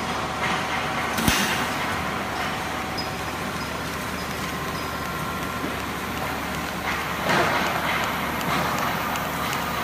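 Automatic straight-seam welding machine running a weld: steady noise of the welding arc as the torch travels along the seam, mixed with steady machine noise. A sharp click comes about a second in, and the noise swells briefly near the end.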